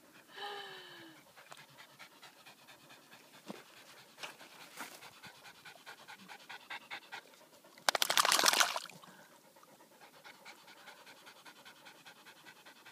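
Dog panting steadily, with a short, louder burst of noise about eight seconds in.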